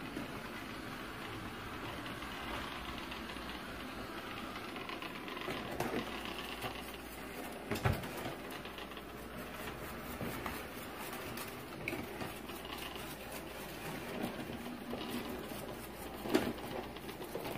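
Coredy robot vacuum running: a steady whir of its suction motor and spinning side brushes as it roams the floor, still cleaning on its way back to its charging base. A couple of short knocks break in, one about halfway through and one near the end.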